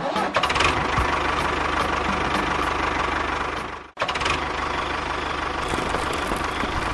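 A small engine or motor running steadily with a fast, even knocking rhythm. It cuts out abruptly for a moment about four seconds in, then runs on.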